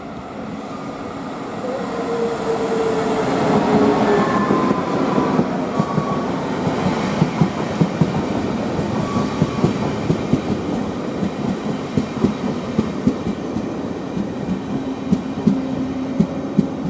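A train passing close by. It grows louder over the first few seconds, with a few brief tones falling slightly in pitch, then runs on with its wheels clacking over rail joints in a quick, irregular series of clicks.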